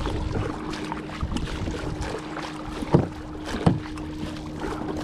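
Kayak on the water: irregular paddle splashes and knocks against the plastic hull, with wind on the microphone and a steady low hum underneath. The two loudest knocks come about three seconds in, half a second apart.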